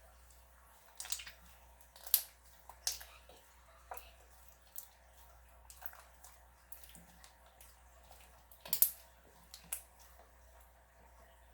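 Slime being squeezed and worked by hand, making irregular wet pops and clicks, the loudest about nine seconds in.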